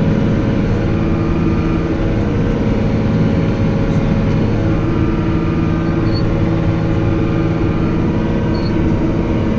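Tractor engine running steadily at constant speed with an even, unchanging drone.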